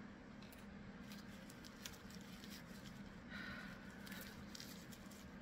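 Faint rustling and small clicks of a gift wrapped in paper and tape being handled and turned over.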